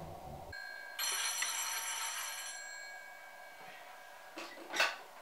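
A telephone bell rings once, starting suddenly about a second in, then dies away over the next couple of seconds. A few short clicks and a louder clatter follow near the end.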